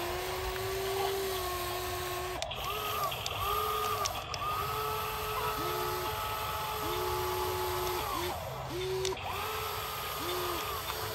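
Small electric gear motors of a toy remote-control excavator whining in short runs, starting and stopping many times as its arm and bucket move, sometimes two motors at once at different pitches.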